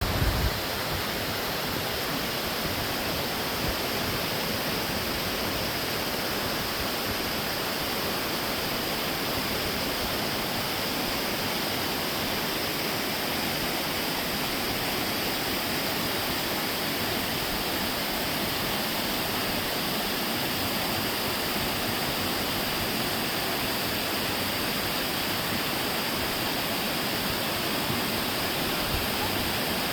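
Steady rushing of a rocky mountain-valley stream, water cascading with an even, unbroken noise.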